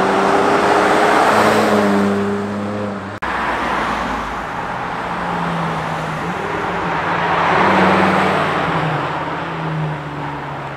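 Lamborghinis driving past the roadside one after another. A Lamborghini LM002 off-roader's engine swells as it passes about a second and a half in. After a cut, a green Lamborghini Huracán's V10 approaches and passes close about eight seconds in.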